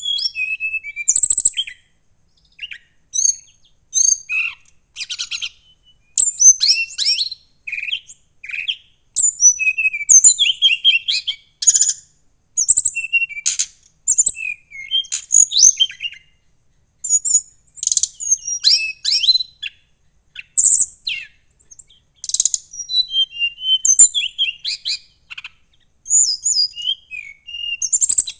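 Brown-chested jungle flycatcher (SRDC) singing in a cage: phrase after phrase of rapid, varied high chirps, whistles and fast buzzy trills, with short pauses between phrases.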